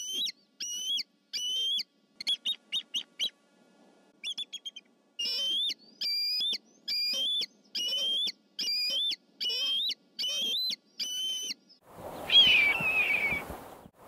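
Bald eagle giving its cackling call: a long series of thin, high-pitched chirping notes, first in short quick runs, then steadier notes about two a second. Near the end a red-tailed hawk gives one loud, raspy scream that falls in pitch.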